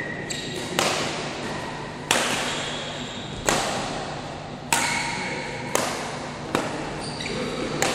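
Badminton rackets striking a shuttlecock during a rally: six sharp hits about a second apart, each echoing briefly in the hall.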